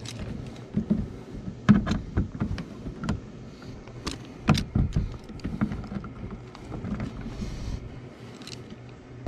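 Scattered metal clicks and knocks of channel-lock pliers being fitted onto a car's bolt retainer, which spins because its clip is broken, over a low steady hum.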